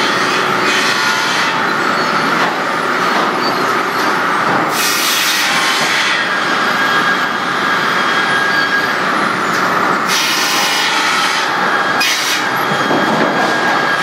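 Sawmill machinery running with a steady din of saws and chain conveyors moving boards, with three loud hissing surges about five, ten and twelve seconds in, as a saw cuts through lumber.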